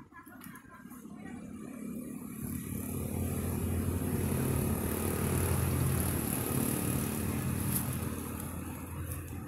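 A motor vehicle's engine running as it passes close by: it grows steadily louder over the first four seconds or so, holds, then starts to fade near the end.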